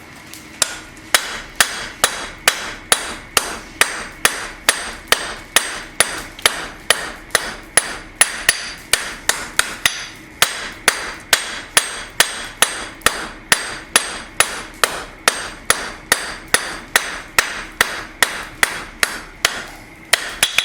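Hand hammer striking a steel bar on an anvil in a steady rhythm, a little over two blows a second, with a short pause about ten seconds in. The blows are knocking the corners off the square bar as it is forged from square to octagonal.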